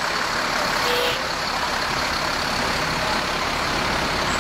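Fire engine's engine running steadily as the truck rolls slowly past.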